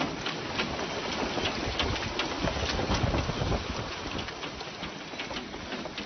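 Heavy storm rain falling steadily, with many sharp ticks and knocks of drops striking surfaces.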